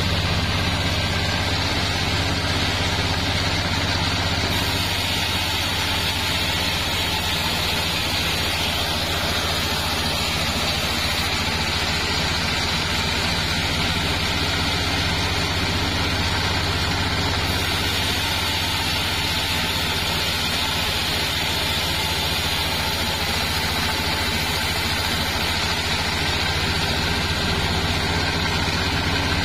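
Engine-driven mobile band sawmill running steadily while its vertical band blade saws a sengon log lengthwise: a constant low engine hum under the even noise of the saw.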